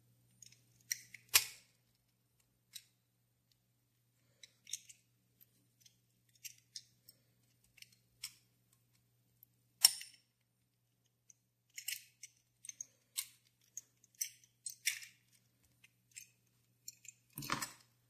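Small metal clicks and taps of pliers gripping and turning a part at the top of a Ronson gas lighter. The sharpest clicks come about a second and a half in and near ten seconds, and a duller knock with a short rattle comes near the end.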